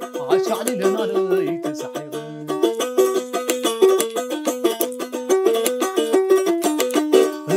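Krar, a plucked lyre, playing a quick melody of repeated stepped notes, with a voice singing over the first couple of seconds.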